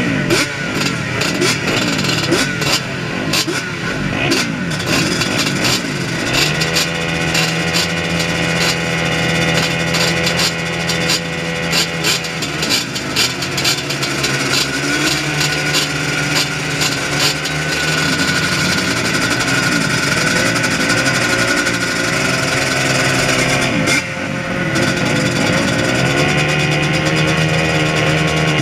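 Several racing quad (ATV) engines idling and being revved on the start line, their overlapping pitches rising and falling. The revs are irregular at first, then settle into steadier held engine notes.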